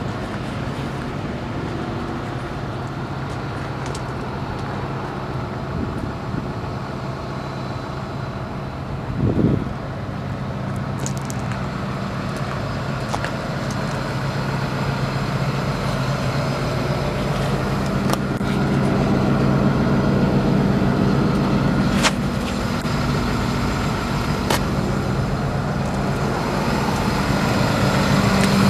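Case CX300D excavator's diesel engine idling steadily, a little louder from about two-thirds of the way through. A brief low bump about a third of the way in and a couple of sharp clicks near the end.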